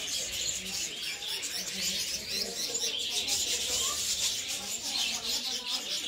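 A flock of budgerigars chattering, many short chirping and warbling calls overlapping without a break.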